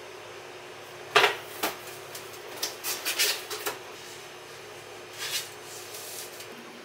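Handling sounds of packing a cake into a white cardboard cake box: a sharp knock about a second in, then a run of light taps and knocks against the paperboard and the steel counter.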